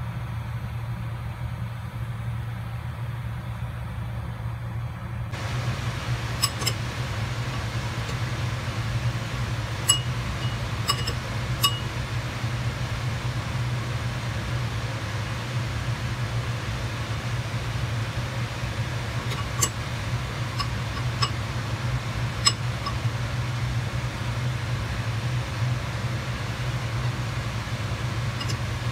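Steady low mechanical hum with a spoon clinking sharply now and then against a ceramic bowl, a few clinks in two small clusters, as samosa pieces are dipped into a batter slurry.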